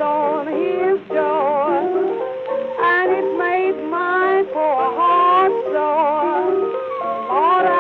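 Instrumental break from a 1920s blues record: several melody instruments weave lines with a wide vibrato over a steady accompaniment, with the narrow, dull top end of an old recording.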